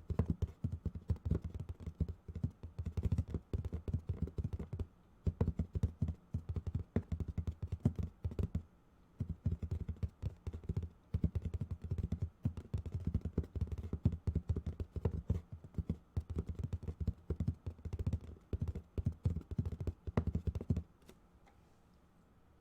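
RF91U keyboard being typed on fast, in runs of dense key clicks broken by short pauses, stopping near the end.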